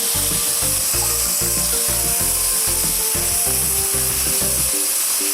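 Background music with a steady, bouncing bass line that drops out near the end, over a steady sizzle of tomatoes and seasonings frying in hot oil in the pot.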